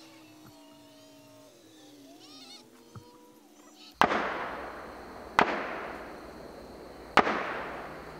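Three loud gunshots about a second and a half apart, each a sharp crack followed by a long rolling echo. Before them, faint drawn-out animal calls.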